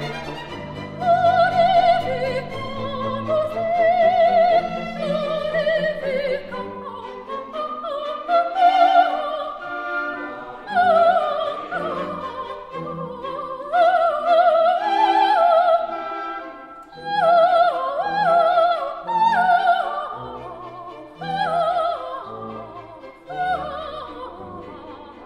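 Classical solo singing in a high voice with wide vibrato, over a sustained instrumental accompaniment.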